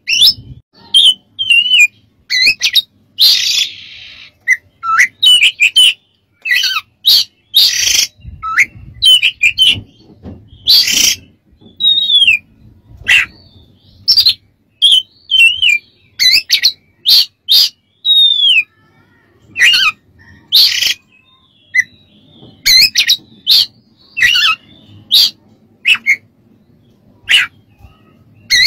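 Male Oriental magpie-robin singing: a quick, varied run of short whistles and chirps mixed with sharp harsh notes, in bursts with brief gaps, including a longer scratchy rasp a few seconds in.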